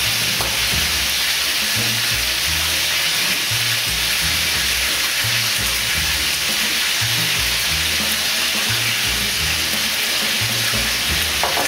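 Boneless skin-on chicken thighs frying in a hot pan, a steady sizzle, under background music with a repeating bass line.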